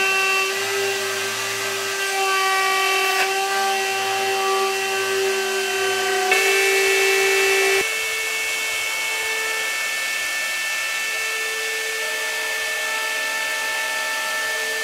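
CNC router spindle running with a steady high whine as its straight bit mills a block of wooden pattern stock, with the hiss of the cut under it. The pitch shifts about six seconds in, and it drops a little quieter about eight seconds in.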